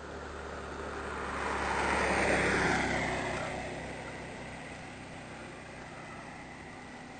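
A car passing by on the road: its tyre and engine noise swells to a peak about two seconds in, drops in pitch as it goes by, and fades away, over a steady low hum.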